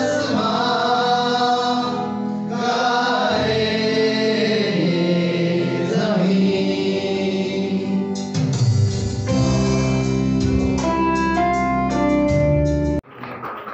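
Gospel music: a choir singing with instrumental accompaniment, ending in an abrupt cut shortly before the end.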